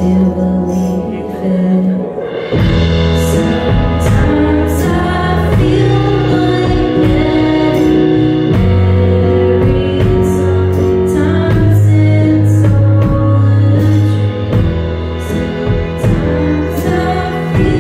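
Live band music: a sung lead vocal over electric keyboard, electric bass and drums with cymbal strokes. The arrangement fills out about two seconds in.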